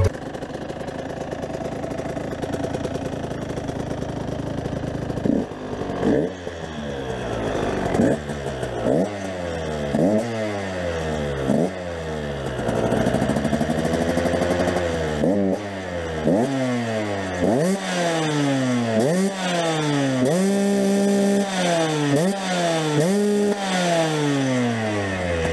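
2007 KTM 125 EXC's two-stroke single-cylinder engine idling, then revved in repeated quick throttle blips from about five seconds in. Each blip rises sharply in pitch and falls back, and one longer, slower rev comes near the middle.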